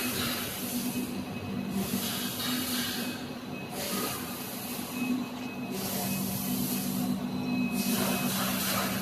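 Industrial production machine cycling: bursts of compressed-air hiss repeat about every two seconds over a steady low machine hum.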